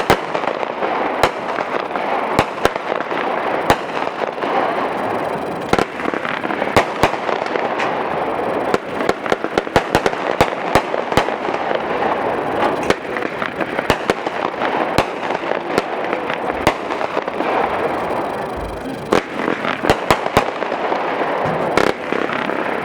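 A 24-shot, 200-gram firework cake ('She Bites') firing its shots one after another, with sharp reports about once a second or closer together. Between the reports a dense, continuous noise from the bursting effects carries on.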